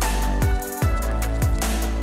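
Electronic background music with a steady beat of deep kick drums that drop in pitch, about two a second, briefly thinning out around the middle.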